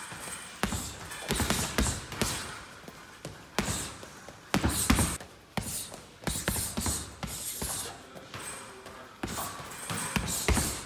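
Boxing gloves punching a teardrop heavy bag: irregular thuds that come in quick flurries, with several blows close together around two, five and seven seconds in and another flurry near the end.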